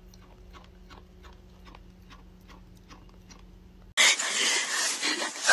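Opossum chewing food from a dish: faint, quick clicks about four times a second over a low steady hum. About four seconds in, this cuts to a much louder rough, noisy sound.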